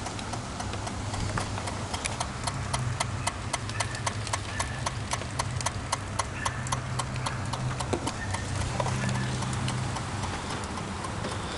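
Rapid, even electrical clicking from inside a 1995 Golf with the key out of the ignition, about four to five clicks a second. It starts a second or so in and dies out after about nine seconds, over a steady low hum.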